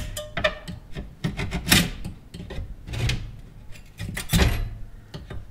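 Razor-blade scraper scraping and prying thin metallic chrome foil off a plastic Jeep Grand Cherokee WJ grille, in short, irregular strokes. The chrome is a metal foil layer, not paint.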